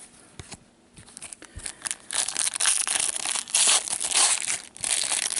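A hockey card pack's wrapper being torn open and crinkled. It starts with a few faint clicks and rustles, then from about two seconds in becomes a dense crinkling with short breaks.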